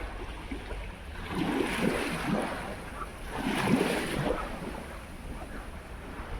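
Sea of Azov waves washing in, two swells of surf about two seconds apart, with wind rumbling on the microphone.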